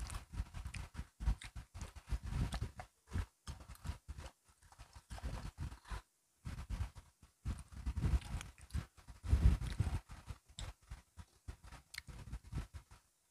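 Close-up crunching and chewing of crisp biscuit sticks: irregular sharp cracks and bite clicks over low, muffled chewing, with brief pauses.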